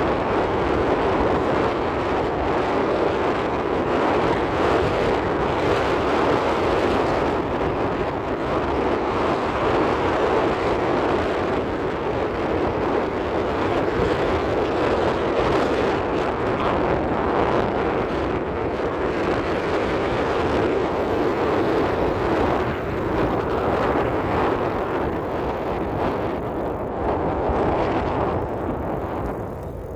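Steady rushing noise of wind buffeting the microphone outdoors, with no distinct events.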